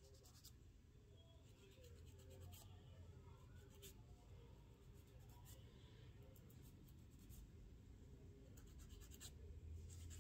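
Faint scratching of a nail file or buffer stroked across fingernails, coming in short runs of strokes with pauses between, over a low steady hum.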